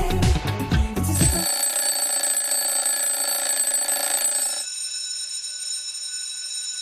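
Background music cuts off about a second and a half in, and a Samsung smartphone's alarm rings with a steady electronic tone. About three seconds later the tone thins out and grows fainter, then stops.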